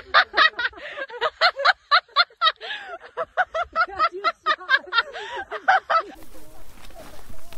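A person laughing hard, a quick run of short voiced bursts that stops about six seconds in, leaving a steady hiss.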